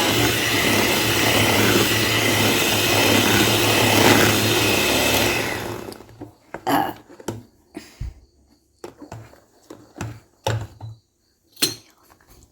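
Electric kitchen mixer running steadily with a motor hum, then switched off about five and a half seconds in. A few scattered knocks and clicks follow.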